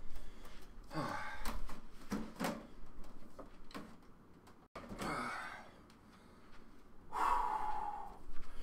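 A man breathing hard and gasping, out of breath after a long exercise-bike workout: several heavy exhalations a second or two apart, the longest near the end.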